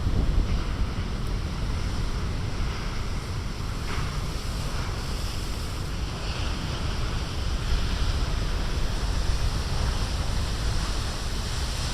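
Big storm surf breaking and washing ashore in a steady roar, left over from a strong southeaster, with wind buffeting the microphone in a low rumble.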